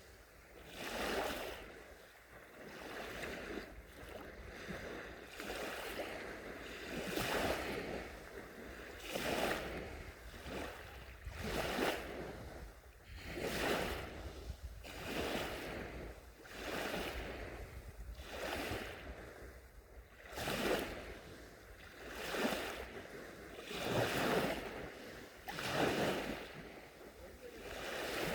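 Gentle sea waves breaking and washing onto the shore, one after another, each surge of rushing water swelling and falling away about every two seconds.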